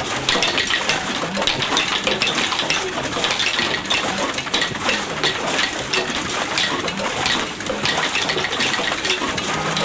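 Sticks beating on stone blocks: a fast, dense clatter of hard knocks from several players striking together.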